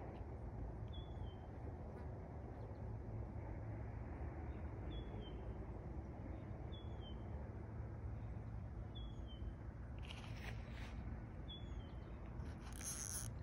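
A bird calling a short, high, slightly falling chirp five times, a few seconds apart, over a steady low outdoor rumble. Two brief hissing noises come near the end.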